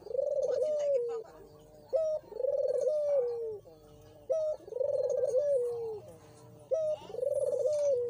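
Caged collared dove (puter) cooing. Four phrases come about every two and a half seconds, each a short note followed by a longer coo that falls away at the end.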